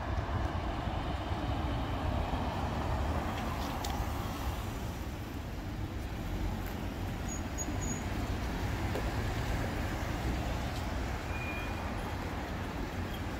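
Steady outdoor rumble and hiss of wind buffeting the microphone, with road traffic noise underneath.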